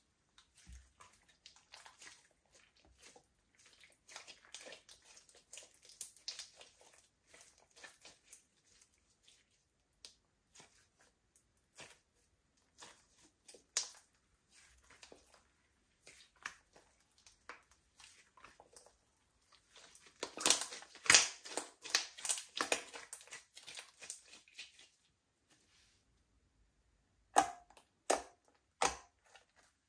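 Slime being kneaded and squeezed by hand, making sticky crackling clicks and small air-bubble pops. A dense, louder run of pops comes about two-thirds of the way in, and three sharp pops come near the end.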